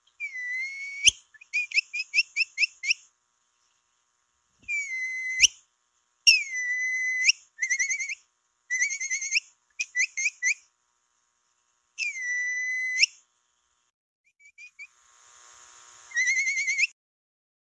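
Capybara whistle calls used as a lure: long held whistles that scoop up at the start, alternating with quick runs of short chirps, about five a second, with a few sharp clicks between phrases.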